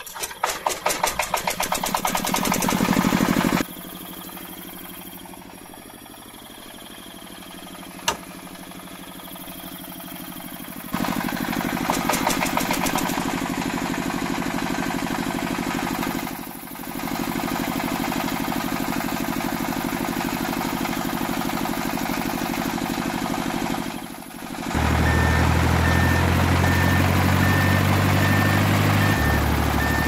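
Small tractor-engine sound starting up: rapid putts that speed up and grow louder over the first few seconds. It then settles into steady running, louder again from about a third of the way in, with two brief dips, and turns into a deeper, louder drone near the end.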